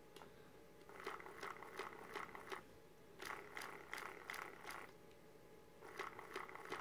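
Two small stepper motors spinning a clock's pair of googly eyes in random directions. They make three faint bursts of rapid clicking and whirring, each about a second and a half long, with short pauses between.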